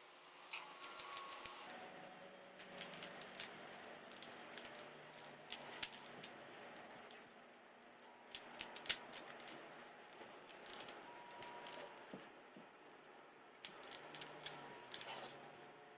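Plastic Pyraminx (3x3 pyramid twisty puzzle) being turned fast during a speed solve: quick clusters of sharp clicks and rattles as its layers snap round, with soft scraping between turns.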